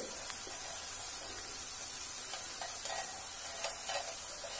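Green brinjal pieces sizzling steadily in hot oil in a kadai, with a few light clicks in the second half.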